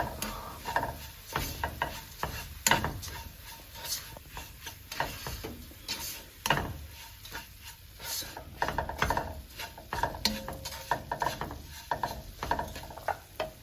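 A spoon stirring and scraping in a pan, mixing powdered rice flakes into hot jaggery and coconut syrup, with irregular knocks and scrapes against the pan.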